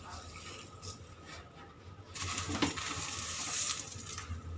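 Dry vermicelli being added to a pot of boiling water: quiet at first, then from about two seconds in a rustling hiss with one light clink.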